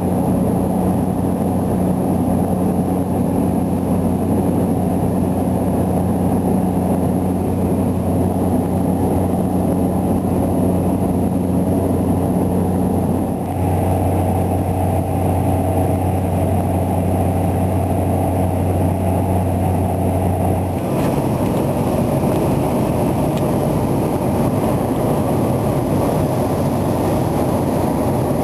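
Cessna Caravan's single-engine Pratt & Whitney PT6A turboprop and propeller droning steadily, heard inside the cabin in flight. The drone's tone shifts abruptly twice, about halfway through and again about two-thirds in.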